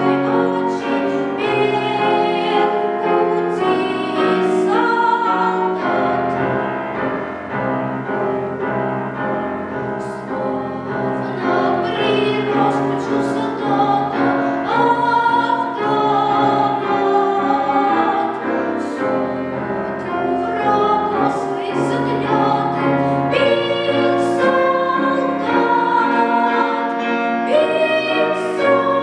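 A child singing in the classical academic style with piano accompaniment, holding long notes with vibrato.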